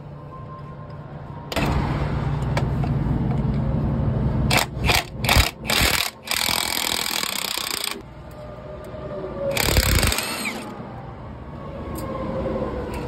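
Handheld air hammer with a chisel bit buzzing in bursts against a rusted drive shaft flange nut, chiselling the nut's edges to break the rust loose. It runs steadily for several seconds with choppy stop-start bursts in the middle, then gives one more loud burst near ten seconds.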